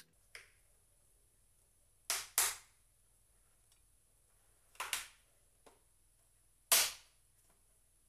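Plastic snap-fit clips of an MSI GS60 laptop's bottom cover clicking into place as the case is pressed together. The sharp clicks come singly and in quick pairs, with the loudest near the end, and show the cover seating.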